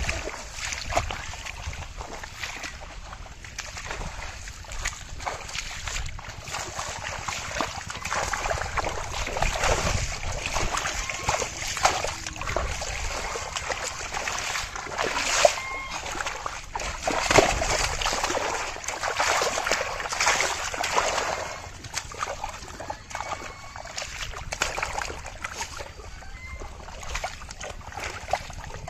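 Irregular splashing and sloshing in shallow muddy water as hands and legs thrash about grabbing fish, busiest through the middle.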